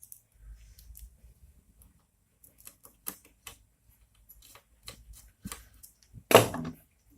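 Small clicks and taps of screws, a screwdriver and 3D printer kit parts being handled during assembly, with one louder clatter about six seconds in.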